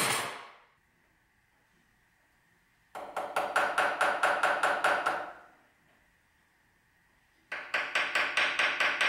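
Rapid metallic clicking of shop work, about six clicks a second, in two bursts of about two seconds each, with a clatter dying away at the very start.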